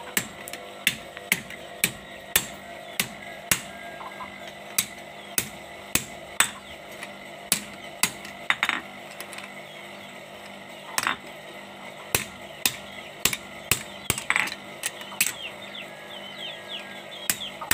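Hand hammer forging a red-hot steel machete blank, made from a used bearing, on an anvil: sharp metal-on-metal blows at a steady rhythm of about two a second, with a short pause midway and fewer blows near the end.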